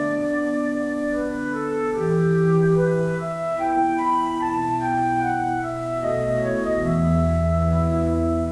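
Background music: slow sustained keyboard or organ-like chords changing every second or two, with a deep bass note coming in near the end.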